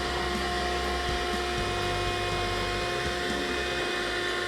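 Black + Decker 18-volt cordless stick vacuum running steadily, a constant motor whine over the rush of air.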